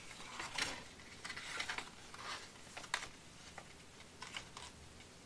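Paper airplane being folded and handled on a cutting mat: soft irregular rustles and crease scrapes of the paper, with one sharper tick about three seconds in.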